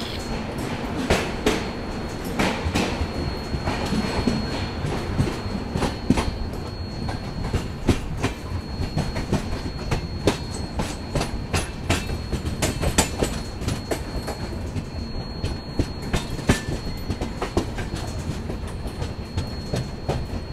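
Indian Railways intercity express coach running out of a station, heard from its open doorway. The wheels rumble and clack irregularly over rail joints and points, under a faint steady high whine.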